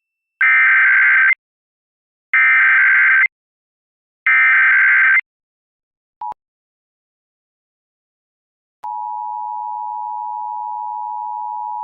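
Emergency Alert System Required Monthly Test signal: three identical bursts of digital SAME header data, each about a second long and a second apart. After a tiny blip and a pause of a few seconds, the steady two-tone EAS attention signal starts about nine seconds in.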